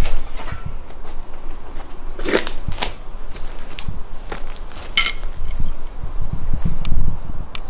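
Footsteps crunching over debris and grit, with a few sharp cracks and knocks over a low rumble.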